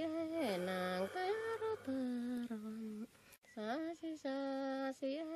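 Quiet wordless humming of a slow, lullaby-like melody: held notes joined by smooth glides, with a short break a little over three seconds in.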